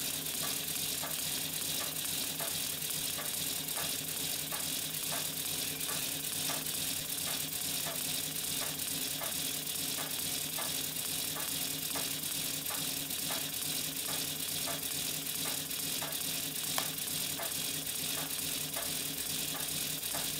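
00 gauge live-steam model of a GER S69 locomotive running on a rolling road: a steady mechanical rattle from the spinning driving wheels, rods and valve drive, with light clicks about twice a second over a steady high hiss.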